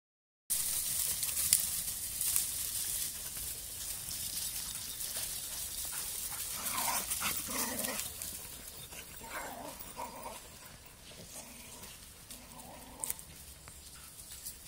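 Dogs playing chase, running through dry leaf litter with a rustling hiss; about halfway in they give short play barks and yips, several in a row, with a few more near the end.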